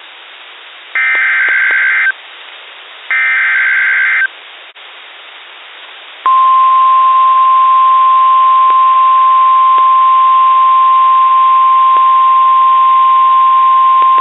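NOAA Weather Radio Emergency Alert System broadcast received over a radio receiver: the last two of the three SAME digital header bursts, each a harsh, buzzy screech about a second long, with radio hiss between them. About two seconds after the last burst, the loud, steady single-pitch warning alarm tone comes on and holds, the signal that a warning message follows.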